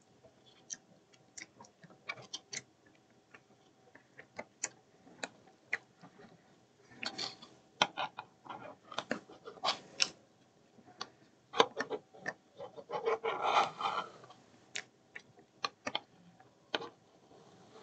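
A spoon clicking and scraping in a small bowl of ice cream as it is eaten, in irregular sharp clinks. There are louder, noisier stretches about seven seconds and thirteen seconds in.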